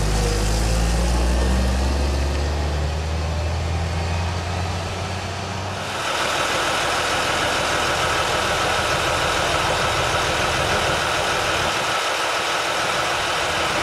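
Heavy diesel truck pulling a lowboy trailer past at low speed, a deep steady engine drone. About six seconds in the sound switches abruptly to a steadier hiss with a faint high whine, with the parked truck running at idle.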